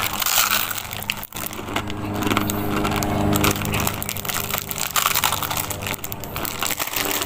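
Dry, uncooked instant pancit canton noodle block crunching as it is bitten and chewed: a dense run of crisp, irregular cracks and crackles.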